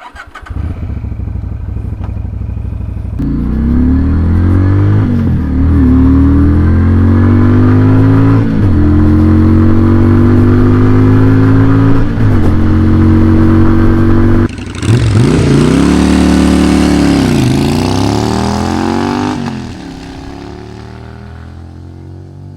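Shineray Denver 250's V-twin engine running low at first, then accelerating hard: its pitch climbs again and again, broken by short dips like gear changes. Later the revs rise and fall, and near the end the sound fades away.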